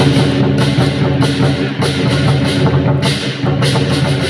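Lion dance accompaniment of drum, gongs and cymbals playing a steady, loud beat, with sharp clashes repeating roughly every half second over a ringing low tone.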